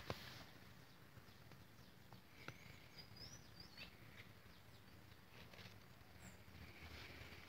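Near silence: faint outdoor ambience with a few faint bird chirps and the odd soft click.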